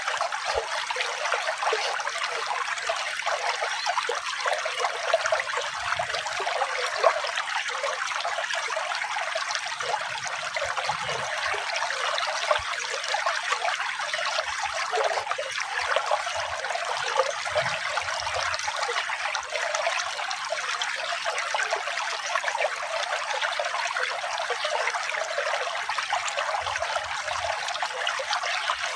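Flowing water, a steady, even rush of running water with little deep rumble.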